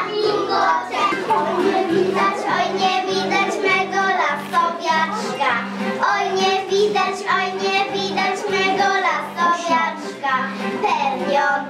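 Preschool children singing a folk song together over an instrumental accompaniment with a steady beat.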